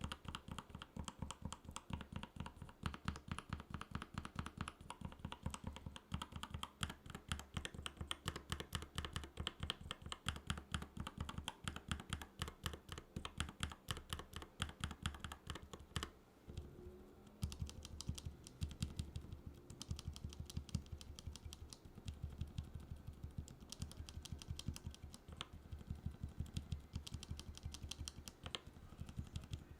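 Mechanical keyboard being typed on quickly, a steady stream of keystrokes with a short pause about two-thirds of the way through.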